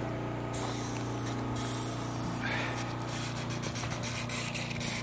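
Water pump running steadily with a constant hum as it fills the cabin's water tank, with water flowing.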